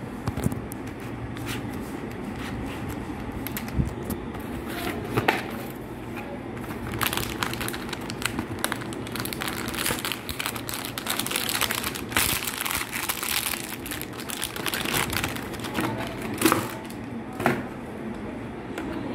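Plastic and foil packaging crinkling and rustling as a part is handled out of its cardboard box. The crackle is busiest in the middle, and a few sharp knocks come earlier and near the end.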